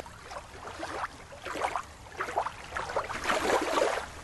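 Sea water splashing and rushing in irregular washes, several a second, with no steady tone.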